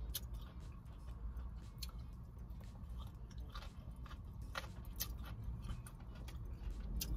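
Close chewing of a mouthful of Chinese takeout (beef, broccoli and fried rice), with scattered irregular wet clicks and smacks over a low steady hum.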